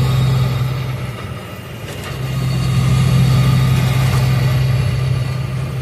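Engine and road noise heard inside a moving car's cabin: a steady low drone that eases off about a second and a half in, then comes back up.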